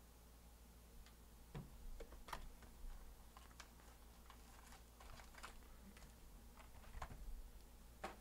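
Faint, scattered clicks, taps and light rustles of a cardboard trading-card hobby box being opened and its foil packs handled on a table.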